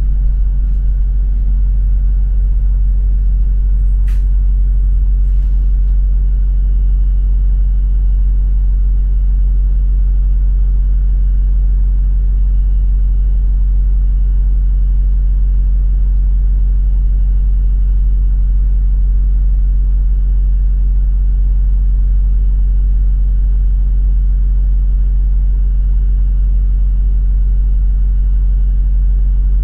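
London double-decker bus's engine running at a steady, unchanging pitch, heard from inside the bus as a constant low hum. A single brief click about four seconds in.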